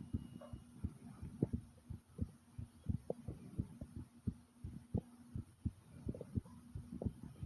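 A person's heartbeat, beating fast: quick low thumps, about four a second, over a steady low hum.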